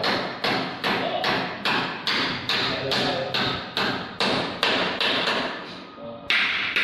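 Hand hammer blows struck in a steady rhythm, about two and a half a second, with a short pause near the end.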